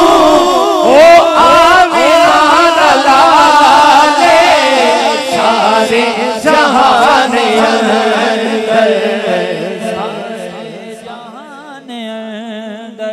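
Male voices singing a Punjabi naat in a long, drawn-out melodic passage without distinct words, several voices overlapping, gradually fading away toward the end.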